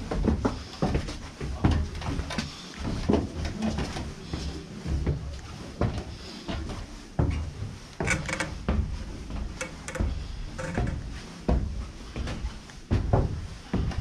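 Footsteps climbing stairs in a small, enclosed space: irregular knocks and thumps, one or two a second.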